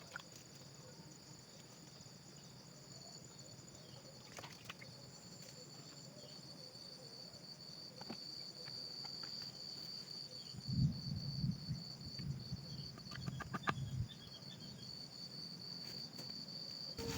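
Steady high-pitched trilling of crickets or other insects in the forest. About ten seconds in, several seconds of low thumps and rustling rise above it, with a few sharp clicks scattered through.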